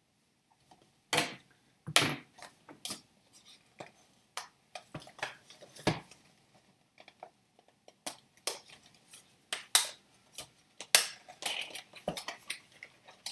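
Cardboard starter-deck box handled and opened by hand: irregular clicks, taps and scrapes as the flaps are pried open and the cardboard insert is pulled out.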